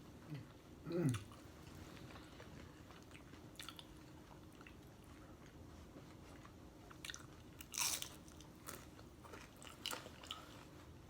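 Tortilla chips being bitten and crunched, with chewing close to the microphone in scattered irregular bites; the loudest crunch comes near the end. A short hummed voice sound comes about a second in.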